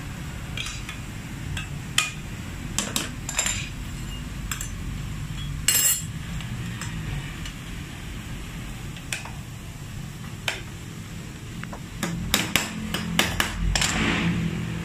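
Metal tools and parts clinking and knocking at irregular intervals over a steady low rumble, the sharpest knock about six seconds in and a quick run of them near the end.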